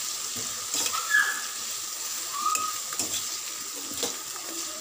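Chopped onion, tomato, dried red chillies and coriander leaves sizzling in oil in a kadai, with a steady hiss. A spatula stirs them, scraping and tapping against the pan in a handful of strokes; the loudest comes about a second in.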